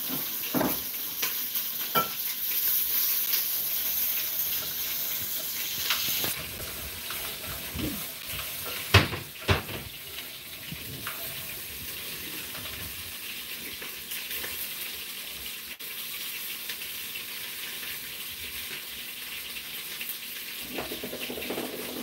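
Hand-cranked Saladmaster food processor shredding carrots through a metal cutting cone, a steady rasping scrape. Two sharp knocks come about nine seconds in, and the scraping then goes on more quietly.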